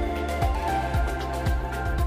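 Background music: held chords over a steady low beat, about two beats a second.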